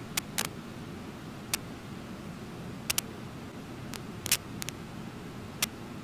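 Steady rushing of the waterfall at Brooks Falls, with about ten sharp, high clicks scattered through it, some in quick pairs.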